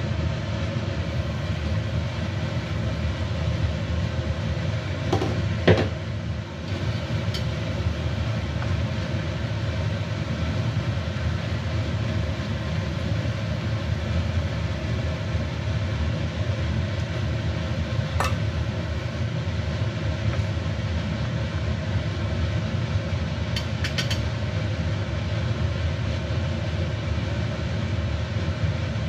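A steady low rumble from a wok cooking on a gas stove, with one sharp clank of a glass wok lid about six seconds in as it is lifted off. A few light clinks of utensils follow later.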